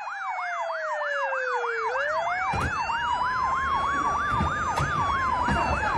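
Two emergency-vehicle sirens sounding together: one a fast warbling yelp, the other a slow wail that falls, rises again about two seconds in, then falls near the end. From about two seconds in, a low rumble and a few thumps sit beneath them.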